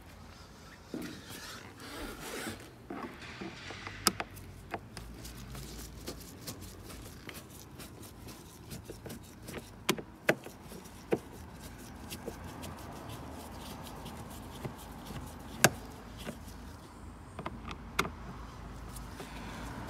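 Cross-head screwdriver working screws out of a plastic lower dashboard trim panel: scraping and rubbing with scattered sharp clicks, the loudest about three-quarters of the way through.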